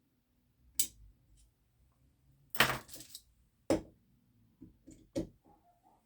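Small metal air-pistol parts clicking and clinking as they are handled and fitted, in a few separate sharp clicks. About two and a half seconds in there is a louder, half-second scrape.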